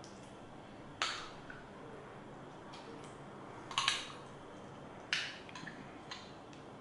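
Metal spoon scooping thick olive pâté from a glass jar, clinking and scraping against the glass: three sharp clinks about one, four and five seconds in, with a few fainter taps between.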